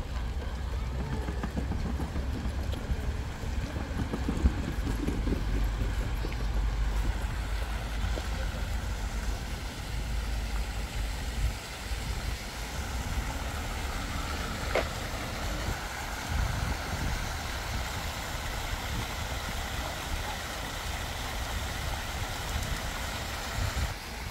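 City street traffic: vehicles running past with a steady low rumble.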